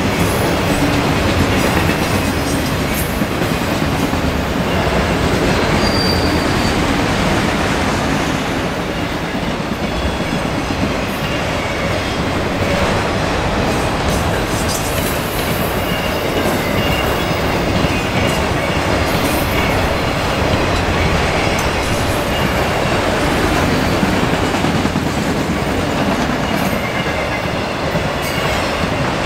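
Autorack freight cars rolling past at speed: a steady, loud rumble and rattle of steel wheels on the rails.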